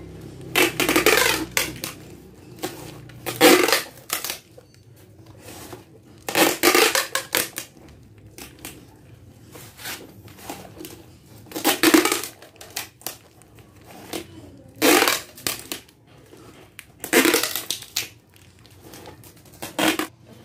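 Brown packing tape pulled off its roll and pressed onto cardboard in about seven short, loud rips a few seconds apart.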